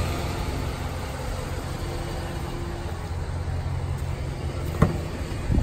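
Pickup truck engine idling with a steady low hum. About five seconds in, a sharp click as the door handle is pulled and the latch releases.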